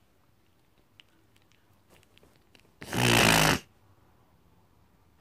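A child's short, loud breathy exhale about three seconds in, against quiet room tone with a few faint clicks.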